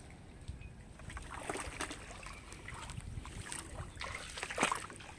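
Water splashing and sloshing in irregular short bursts, with wind rumbling on the microphone.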